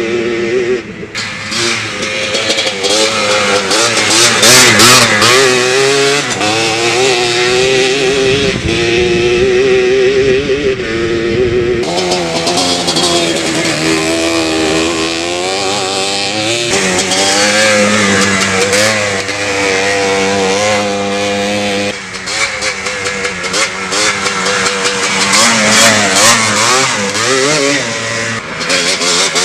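Yamaha Blaster's two-stroke single-cylinder engine running through an FMF aftermarket exhaust pipe, revving up and down with the throttle as the quad is ridden, its pitch wavering constantly. The sound changes abruptly about twelve and twenty-two seconds in.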